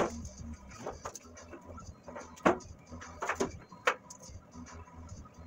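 Clicks and knocks of wiring and plastic loom being handled and pushed into place in a truck's engine bay. The sharpest knocks come right at the start and about two and a half, three and a half and four seconds in.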